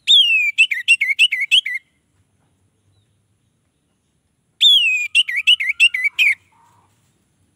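Orange-headed thrush singing two short loud phrases about three seconds apart. Each opens with a high whistled note sliding downward, followed by a quick run of five or six repeated notes.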